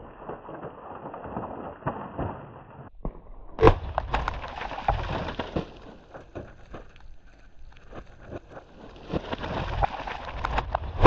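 Scattered crackling and pattering as water and ice from frozen water jugs, burst by a rifle shot, fly and land, with one sharper crack about four seconds in.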